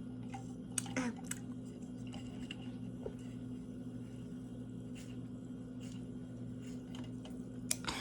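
Quiet room tone with a steady low hum, broken by a few faint short clicks and rustles, a cluster about a second in and one more near the end.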